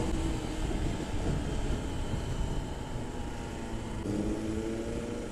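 Motorcycle riding along a road, heard from the moving bike: wind rushing over the microphone with the engine running beneath. About four seconds in an engine note comes up and rises slightly.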